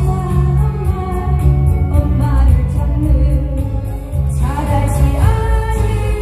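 A woman singing a Korean trot song live into a handheld microphone, over a backing track with a steady drum beat and heavy bass.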